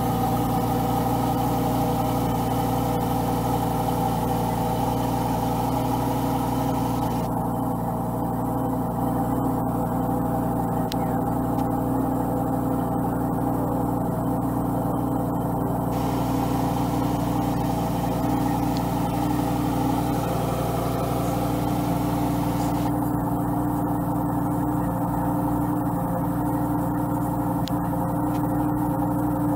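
Lamborghini Huracán Evo's naturally aspirated V10 idling steadily just after start-up, with an even, unchanging note.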